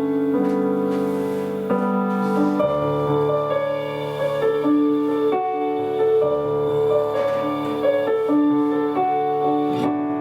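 Instrumental piano music: held chords with a melody line moving over them, no singing.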